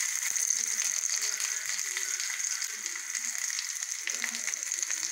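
Whole marinated chicken sizzling in oil in a frying pan: a steady hiss with scattered small pops and crackles as the remaining cooking liquid boils off.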